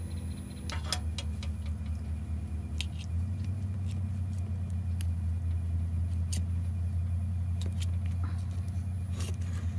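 A steady low motor hum, a little stronger from about three seconds in, with a few light clicks and scrapes of a knife against the metal cake pan as it is run around the edge of a cheesecake.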